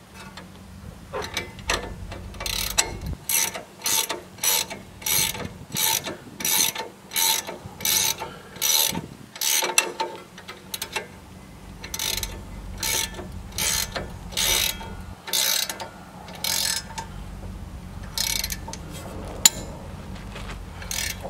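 Socket ratchet clicking in repeated back-and-forth strokes, about two a second, with two short pauses, as a ball joint stud nut is run down tight.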